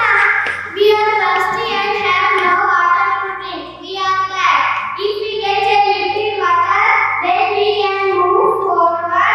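Young children singing a song together into microphones over instrumental music with sustained low notes.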